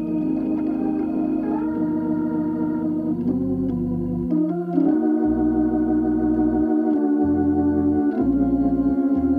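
Two-manual electronic organ with a Hammond-type tone, played as held two-handed chords that change every second or so over a low bass line. The bass drops out briefly a few times, and a wavering vibrato shows on some of the held notes.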